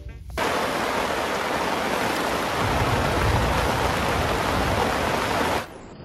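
Steady heavy rain falling, an even hiss that starts a moment in and cuts off abruptly shortly before the end.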